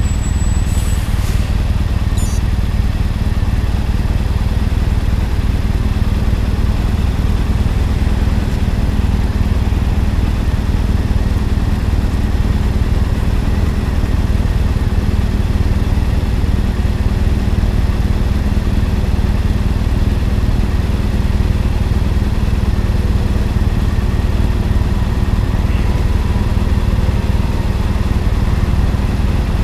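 Road traffic at an intersection: a steady, loud low engine rumble, like a vehicle idling close by, as cars drive across in front.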